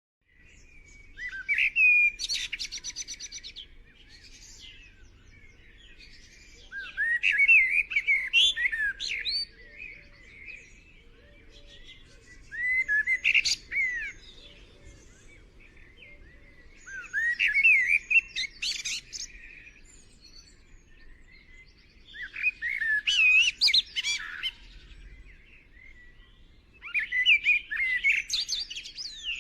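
Young white-eye (Zosterops, 'pleci') twittering in six bursts of rapid high chirps, each about two seconds long and coming roughly every five seconds.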